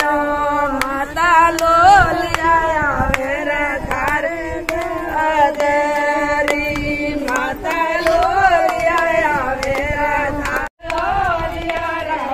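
A group of women singing together in long, wavering held notes, clapping their hands in time. The singing breaks off for a moment near the end and then carries on.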